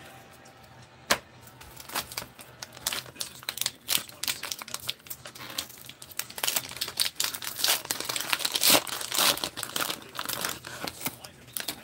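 Hands tearing open and crinkling the wrapper of a 2023 Donruss football card pack: a dense run of crackles and tearing, loudest a little before the end.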